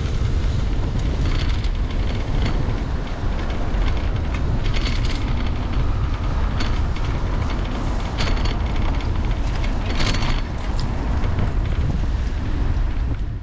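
Wind buffeting the microphone of a handlebar camera on a moving bicycle, a steady low rumble, with the bike's tyres running on the path and a few short rattles now and then.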